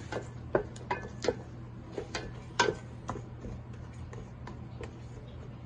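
A cooking utensil clinking against the pan while the melting panutsa and coconut milk are stirred: about a dozen irregular sharp clicks, one with a brief ring, over a steady low hum.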